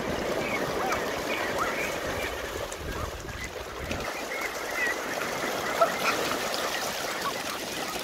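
A large flock of domestic ducks quacking over one another, with water splashing and churning as a person wades quickly through the flooded paddy among them.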